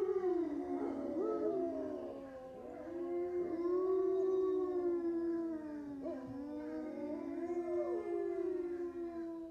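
Wolves howling in chorus: several long, overlapping howls at different pitches, each gliding slowly up and down.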